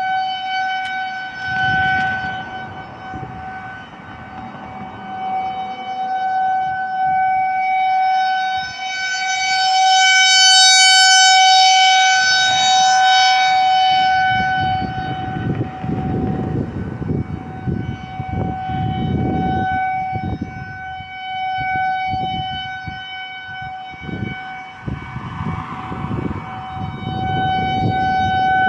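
Outdoor warning siren sounding a steady tone at one unchanging pitch during a siren test, growing louder to a peak about a third of the way in and then easing off. A low, irregular rumbling noise comes and goes beneath it, mostly in the second half.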